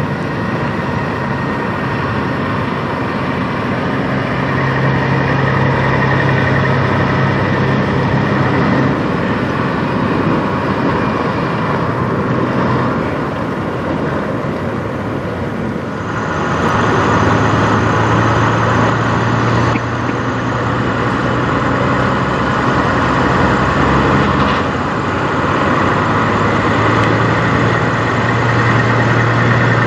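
Diesel engine of a long-hood Peterbilt-style semi tractor pulling a trailer at low speed, running steadily and growing louder as it comes closer. Its engine note shifts in pitch a few times, about a third of the way in, around halfway where it gets louder, and again near the end.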